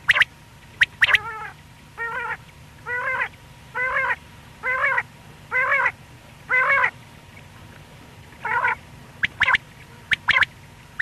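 Common quail calling: a run of about eight wavering notes a little under a second apart, with short sharp call notes near the start and again near the end.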